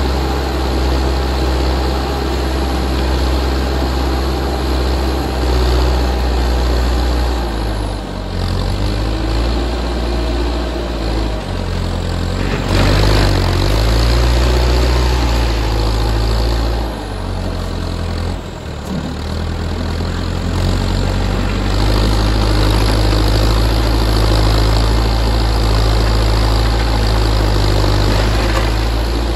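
Backhoe loader's engine running under load while its front bucket pushes crushed stone, the engine note dipping and rising several times. A louder rush of noise comes about 13 seconds in.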